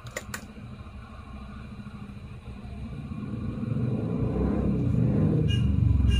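Hot air rework gun blowing onto a circuit board to reflow the solder under a newly placed IC. Its air makes a low rumble that grows steadily louder from about two seconds in, with two small clicks at the very start.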